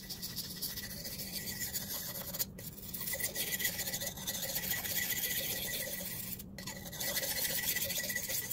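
Steel kitchen knife blade scraped in repeated strokes across the unglazed ceramic foot ring of an upturned mug, a steady rasping with two brief pauses. The sound is the edge being honed at a very shallow angle, 0 to 5 degrees, to dress a dull blade.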